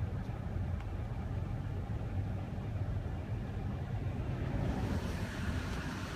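Car driving over a bridge: steady low road rumble. Near the end a broad rushing hiss rises over it.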